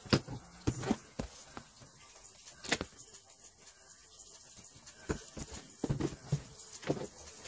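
Handling noise: knocks and taps of boxed action figures and hands on a desk. There is a loud knock right at the start, another a little under three seconds in, and a quick cluster of them near the end.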